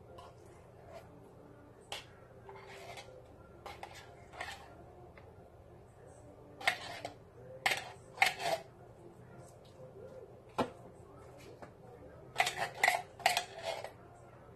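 A spoon clinking and scraping against a baking pan and a chili can while canned chili is spread over tater tots. The knocks come in scattered groups, busier about halfway through and again near the end.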